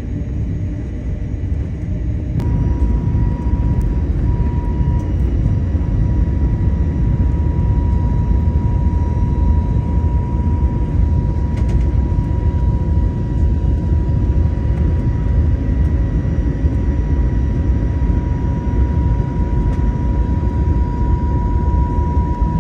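Rumble of a departing jet airliner heard from the ground, which about two seconds in cuts to steady cabin noise inside a climbing jet airliner: a constant roar of engines and airflow with a steady high whine over it.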